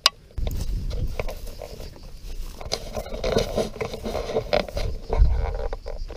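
A sharp click, then about half a second in wind starts rumbling on the microphone, with footsteps scuffing along a stone-paved path through grass.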